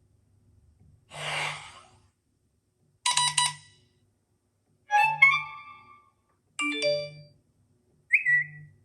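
Five short iPhone iOS 16 alert tones played one after another, about every one and a half to two seconds. The first is a whoosh, the middle ones are short chimes and tone figures, and the last is a brief chirp.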